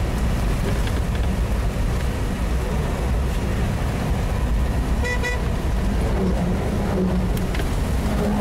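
Steady rumble of a vehicle's engine and tyres heard from inside the cab while driving on snow-covered roads. About five seconds in comes a short, high toot, like a horn.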